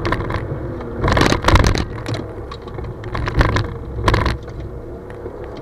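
Car engine running, heard from inside the cabin, with loud rattling and clattering jolts about a second in and again around three and a half and four seconds in.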